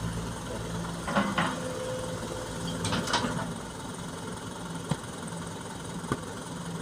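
Heavy diesel engine idling steadily. A few short knocks and rattles come about a second in and again around three seconds in.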